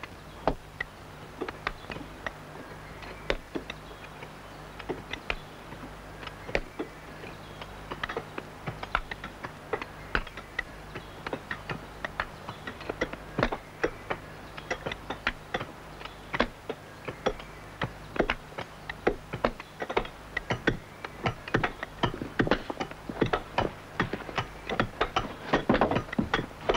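Iron splitting wedges being set one by one into the groove around a sandstone grindstone blank: many irregular sharp clinks and taps of metal on stone, growing denser in the second half, over a steady low hum. The wedges ring the blank before they are driven in to split it from the bedrock.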